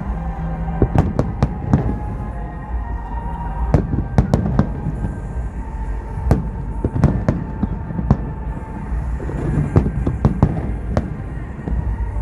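Aerial fireworks shells bursting in a rapid, irregular series of sharp bangs, some clustered several to a second, over a steady rumble.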